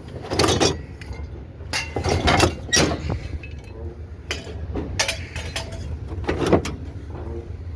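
Scrap metal clanking and banging: several separate sharp knocks spread through a few seconds, over a steady low rumble.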